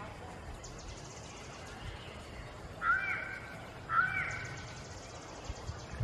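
A crow cawing twice, about a second apart, each caw a harsh call just under a second long.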